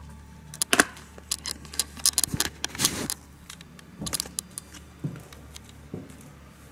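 Footsteps climbing stairs in a derelict building, with debris crunching underfoot and sharp jangling clicks. A dense run of crunches and clicks in the first three seconds, then single steps about once a second.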